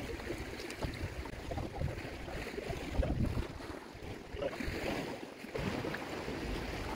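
Wind buffeting the microphone over the wash of the sea against the rocks, an uneven, gusting noise.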